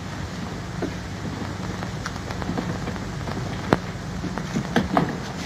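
Steady hiss with a low electrical hum under it, broken by a few scattered clicks, the sharpest a little past the middle.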